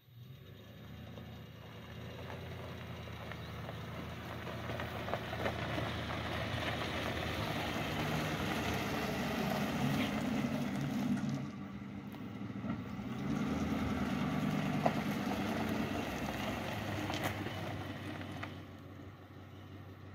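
2004 Ford F-150 4x4 pickup driving by on a gravel driveway: the engine running and tyres crunching over the gravel, growing louder as it approaches. The sound dips for a moment past the middle, comes back, then fades near the end as the truck slows.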